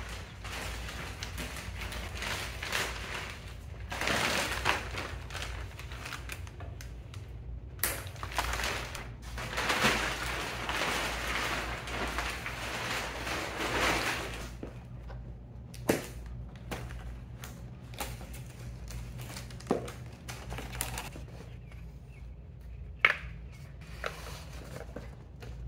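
Large clear plastic cover sheet crinkling and rustling in long surges as it is pulled and gathered off a packing crate, then a few sharp knocks and scrapes of cardboard boxes being handled over the last ten seconds or so.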